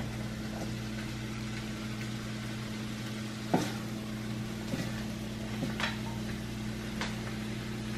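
Wooden spatula scraping stir-fried vegetables out of a frying pan onto a plate of noodles: a handful of short scrapes and taps, the loudest a little past halfway. Under them run a steady low hum and the pan's faint sizzle.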